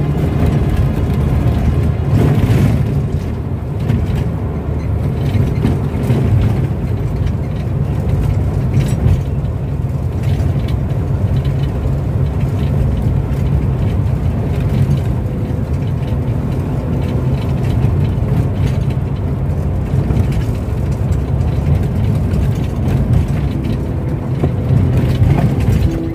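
A road vehicle driving along, a steady low rumble of engine and road noise.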